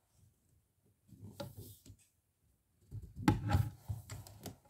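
Tubes and connectors of an embroidery frame being handled and pushed together on a wooden table: faint rubbing and scraping, then a cluster of knocks and clicks from about three seconds in.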